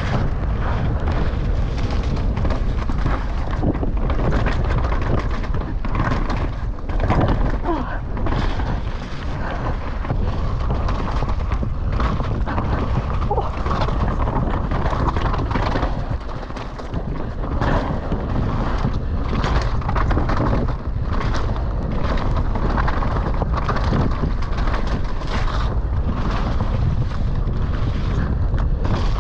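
Mountain bike descending a rough downhill trail at speed: steady wind rumble on the GoPro microphone, with the rattle and repeated knocks of the bike over rough ground.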